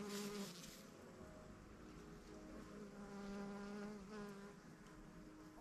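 Bees, wasps and flies buzzing together around a flowering bush: several overlapping buzzes that drift up and down in pitch as insects fly past.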